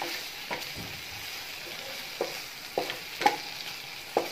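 Marinated chicken pieces sizzling in oil in a nonstick pan, with a wooden spatula scraping and knocking against the pan as they are stirred: about six short strokes spread through the sizzle.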